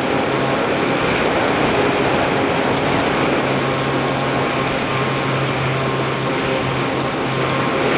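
Steady rush of wind and motor noise picked up on board a small electric RC plane in flight, with a faint low hum from the motor and propeller that grows stronger about halfway through.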